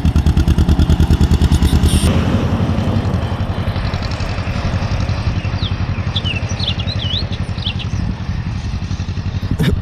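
1952 John Deere MT's two-cylinder engine running with a steady, even popping beat, easing slightly in level about two seconds in. Underneath there is what sounds like something rubbing a little.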